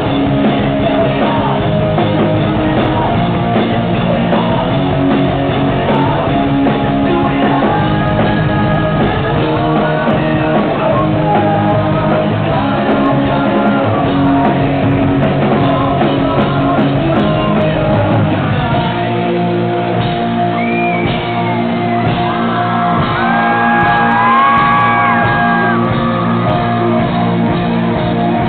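Live rock band playing amplified through a hall PA: electric guitars, bass and drums with vocals. About two-thirds of the way through the low end drops out and high sliding tones come in over the band.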